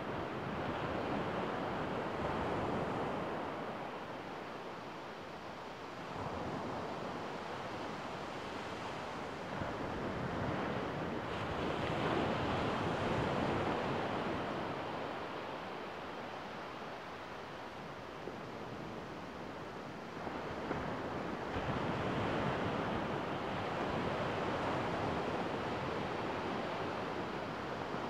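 Small waves breaking and washing up a sandy beach: a steady rush of surf that swells and eases in slow surges every few seconds.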